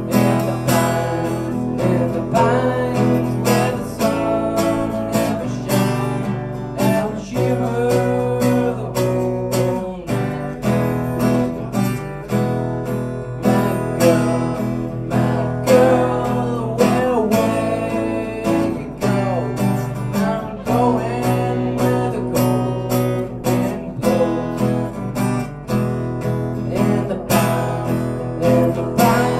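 A young man singing into a microphone while strumming an acoustic guitar in a steady rhythm, both amplified through a PA system.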